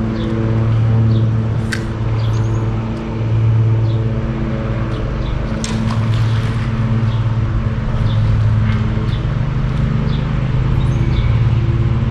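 An engine running steadily at a low, even pitch, its hum swelling and fading every few seconds. A few sharp clicks and faint bird chirps sound over it.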